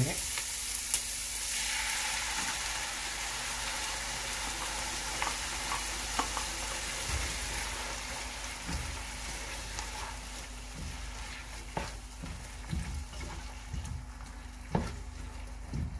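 Onions and bell peppers sizzling in hot oil in a pan as tomato sauce is poured in and stirred with a slotted spatula. The sizzle slowly dies down, with scattered light knocks and scrapes of the spatula against the pan.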